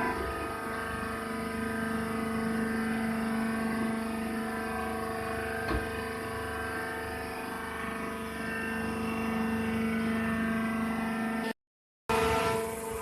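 Hydraulic baler's motor and pump running with a steady, even hum, with a single short knock about six seconds in. The sound cuts out abruptly for about half a second near the end before resuming.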